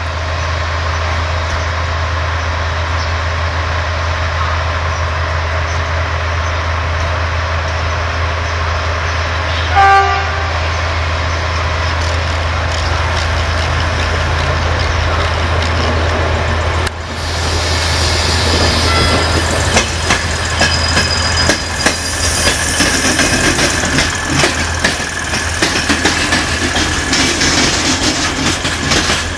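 Class 614 diesel multiple unit running with a steady low drone, giving one short horn toot about ten seconds in. After a cut, it rolls past with wheel clatter and rattling over the rail joints as it departs.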